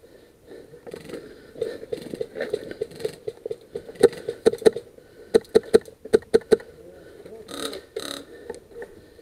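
VFC SCAR-L airsoft rifle firing semi-auto: about ten sharp shots in quick groups of two and three, starting about four seconds in and ending about two and a half seconds later.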